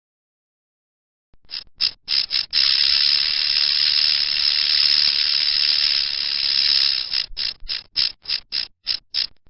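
Rattlesnake shaking its tail rattle, the snake's warning display: a few short dry buzzes, then a continuous buzz for about four seconds, breaking into a quick series of short rattles near the end.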